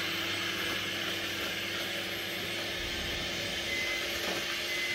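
Electric hand mixer running steadily, its beaters whipping thawed evaporated milk in a plastic bowl.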